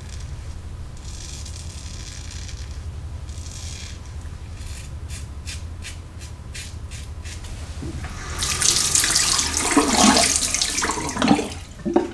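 Merkur 34C closed-comb safety razor with a Treet Carbon blade scraping stubble in short strokes against the grain, quickly repeated for a few seconds. From about eight seconds in, a tap runs loudly into the sink.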